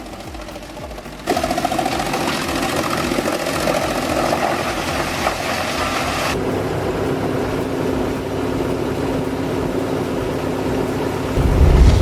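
Scorpion 350 SDB wood chipper running. From about a second in, a loud, harsh noise comes in and lasts until about six seconds, then the machine settles to a steadier engine hum. A deep thump comes near the end.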